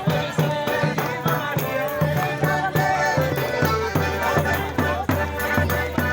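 Traditional folk music with a steady drum beat and shaken rattles, several pitched parts playing together over the beat.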